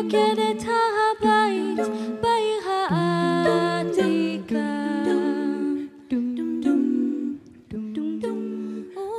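Female jazz vocal ensemble singing wordless close harmony, several voices holding chords that change every second or so.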